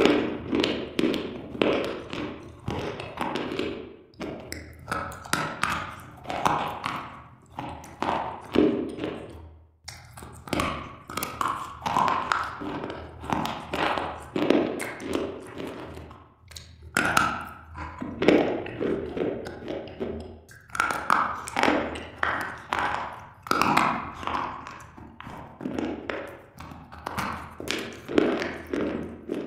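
Close-up crunching and chewing of slate bars, a dense run of sharp cracks and crackles with taps as the hard pieces break.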